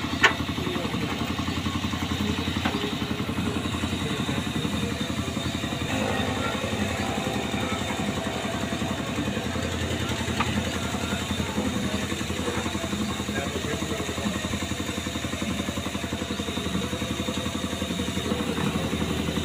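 An engine idling steadily, with a fast even pulse that does not change, and one sharp click just after the start.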